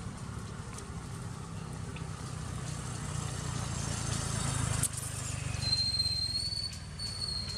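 Outdoor background: a low steady rumble with a sharp click a little past the middle, then a steady high-pitched whine that starts about three quarters of the way through and holds.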